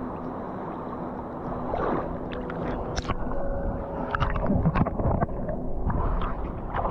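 Water sloshing and splashing close to the microphone, with irregular knocks and splashes, busiest in the second half.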